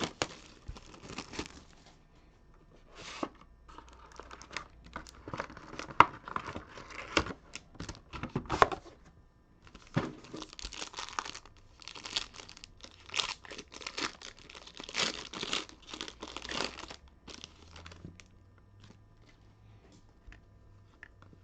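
Wrapping of a trading card box being torn open and crinkled, in irregular crackling bursts that thin out to a few faint clicks near the end.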